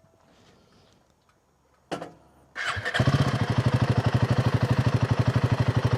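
Royal Enfield Himalayan 450's single-cylinder engine being restarted after a 'misfire detected' warning: a short sound about two seconds in, then the starter cranks briefly and the engine catches, settling into a steady idle with an even beat.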